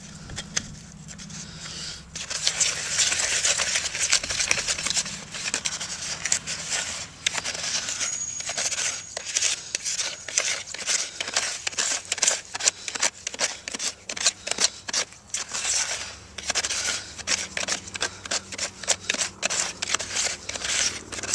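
Flat wooden stick stirring and scraping a thick, lumpy cement and sodium silicate mix in a container: a dense run of quick gritty scrapes, starting about two seconds in.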